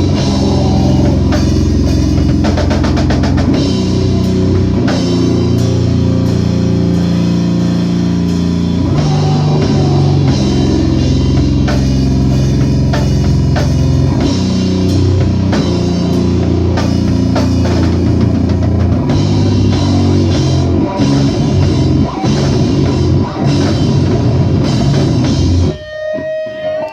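Live rock band playing loud, with a drum kit and electric guitar; the song stops abruptly about a second before the end, leaving a few thin ringing guitar tones.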